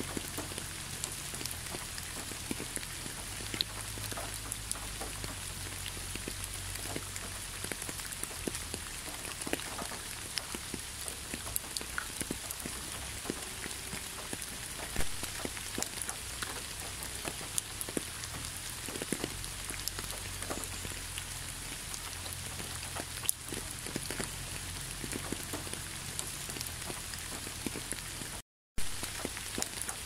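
Steady rain falling, with a constant hiss and many scattered drops ticking close by. The sound cuts out completely for a split second near the end.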